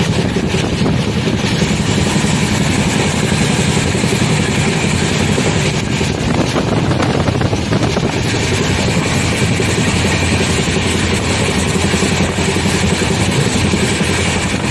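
A moving passenger train heard from on board: a steady rumble and rattle of the coach running over the track, holding level without a break.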